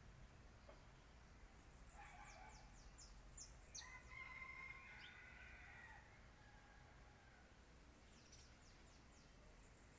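A rooster crows once, faintly, in one call of about four seconds. Small birds chirp in quick, high, falling notes around it.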